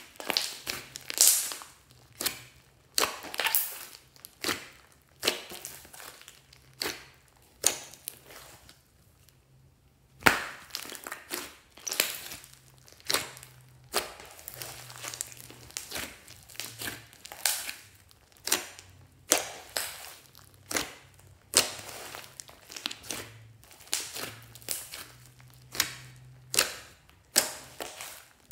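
Slime being pressed and squeezed by hand, giving a run of sharp crackling pops about one or two a second, with a short pause partway through.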